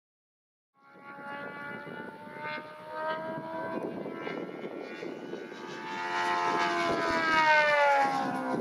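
Saito FG-90R3 three-cylinder radial petrol engine of a large scale model warplane flying, its steady drone starting about a second in and growing louder, then falling in pitch over the last two seconds as the plane goes by.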